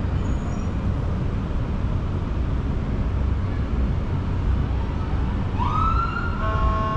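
Steady low rumble of city traffic and road noise. About five and a half seconds in, an emergency vehicle siren sounds briefly: a quick rising wail that levels off into a held tone.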